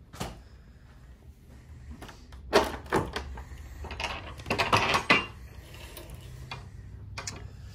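Black metal latch on wooden window shutters being worked by hand: a few sharp clicks and wooden knocks as the shutters are unlatched and swung open, with a cluster of them about five seconds in.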